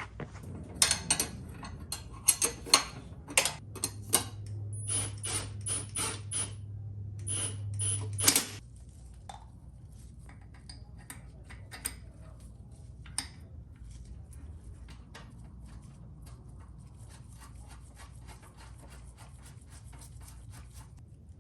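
Metal clinks and clicks of a wrench and hardware as a nut is fitted onto a motorcycle's rear axle bolt, a quick run of sharp clinks for the first eight seconds or so, then only scattered light clicks.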